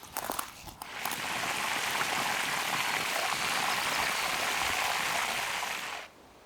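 Cheburek deep-frying in hot vegetable oil: a steady, even sizzle with faint pops that cuts off suddenly about a second before the end.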